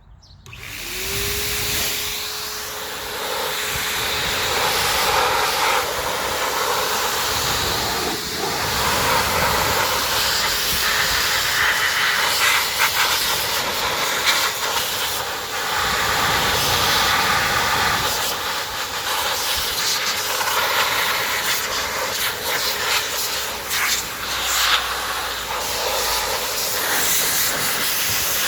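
Loud, steady hiss of rushing air, like an air blower or duster blowing dirt out of the typewriter. A motor tone rises about a second in, then holds steady under the hiss.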